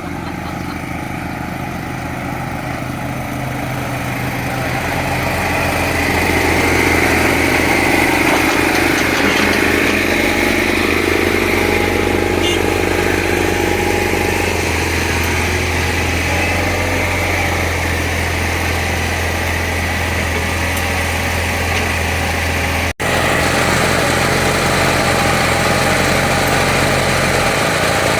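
Small CAT excavator's diesel engine running steadily under load while digging, growing louder about five seconds in.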